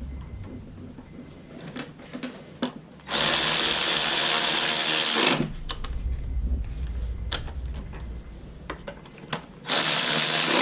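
A cordless electric ratchet runs twice, driving spark plugs home after they were started by hand: about two seconds with the motor whining down as it stops, then a shorter run of about a second near the end, with small clicks of tools in between.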